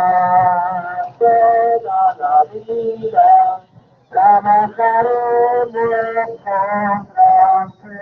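Voices singing a religious song in long held lines, with short pauses between phrases.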